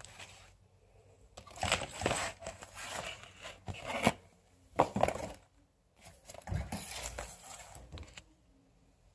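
Cardboard hair-extension box with a clear plastic window rustling and crinkling as it is handled, in two spells of noisy rustle with a short pause between.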